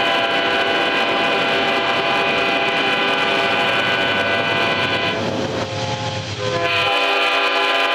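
Several train horns blaring at once, overlapping in loud, sustained chords over a low rumble. A little past the middle the chord thins and shifts, and near the end a new horn chord takes over without the rumble.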